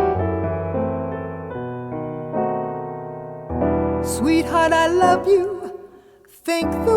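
Solo piano playing sustained chords, then a woman's voice singing with vibrato over the piano from about four seconds in.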